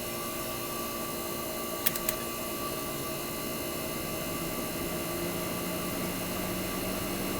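1965 Fedders Weather Wheel air conditioner running steadily: its Tecumseh AJ reciprocating compressor hums with the blowing of fans. Two sharp clicks come close together about two seconds in.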